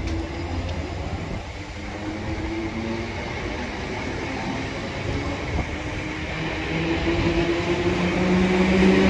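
Greater Anglia electric multiple unit pulling away from the platform, its traction motors giving a whine in several steady tones over a rumble of wheels on rail, growing louder over the last few seconds.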